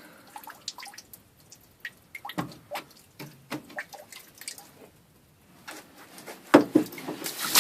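Water draining out of an old sump pump lifted from its pit: scattered drips at first, then louder splashing from about six and a half seconds in.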